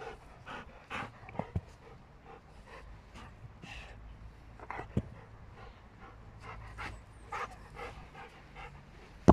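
Black Labrador panting close by in short, uneven breaths, with two dull thuds, one about a second and a half in and another around five seconds.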